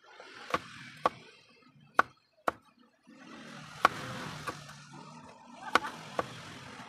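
Kitchen knife slicing okra pods into rounds on a wooden chopping board. There are about eight sharp, unevenly spaced knocks as the blade hits the board.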